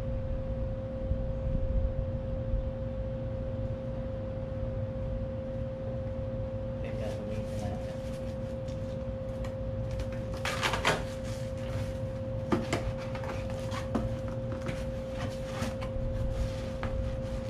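Cardboard box being handled and torn open by hand, from about seven seconds in: a string of crinkles and rips, loudest around eleven seconds in. A steady high hum and a low rumble run underneath throughout.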